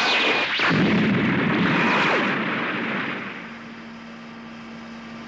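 Sci-fi anime battle sound effects: loud explosion-like noise with sweeping whooshes that rise and fall in pitch, dying away about three seconds in to a faint steady hum.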